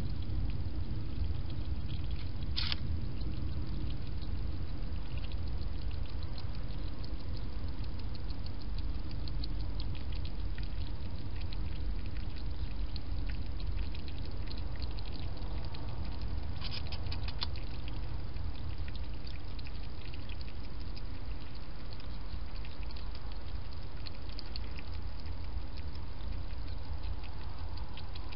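European hedgehog lapping water from a shallow dish: a continuous run of small wet clicks, with a sharper click about three seconds in and a brief flurry of clicks around the middle, over steady low background noise.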